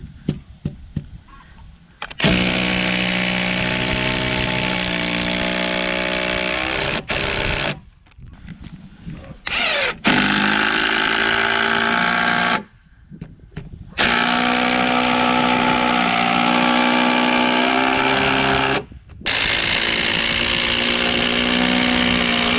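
Power drill-driver running in four long stretches of several seconds each, its pitch sagging and shifting as it drives long construction screws into timber, with short pauses between.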